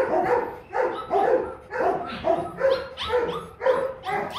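Rottweilers barking in a rapid, continuous series, about two to three barks a second.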